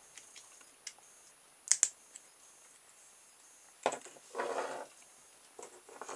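Small-parts handling on a workbench: scattered light clicks, a sharp double click a little under two seconds in, then a short scuffing rustle past the middle, as a home-made switched 9-volt battery connector with a microswitch is picked up and tested.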